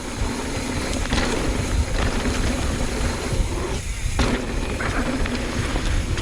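Wind rumbling on the microphone and mountain-bike tyres rolling over a dirt trail during a descent, with a few short knocks and rattles from the bike over bumps.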